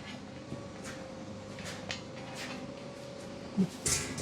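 Workshop handling sounds: scattered light knocks and clicks over a faint steady hum, then near the end a short low grunt-like voice sound and a sharp noisy burst, the loudest moment.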